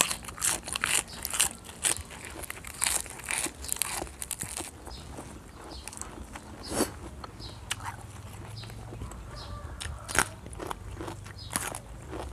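Close-up crunching and chewing of crisp raw lettuce. There is a quick run of crunches over the first few seconds, then slower, sparser chewing broken by a few louder crunches.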